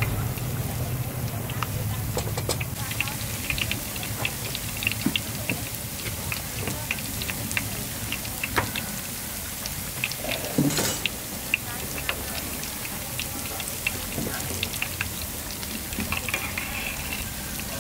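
Street-food stall ambience: a steady hiss with many scattered clinks and taps, and a louder clatter about eleven seconds in.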